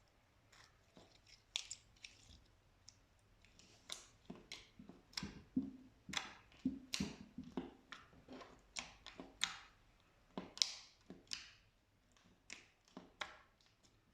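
Slime being pressed and pulled by hand, giving irregular sticky clicks and small pops, sparse at first, thickest through the middle and thinning near the end.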